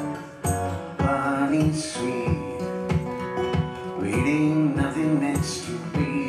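A man singing live to his own acoustic guitar accompaniment. The guitar plays on steadily, with a brief drop in loudness just after the start, and his voice comes in about a second in.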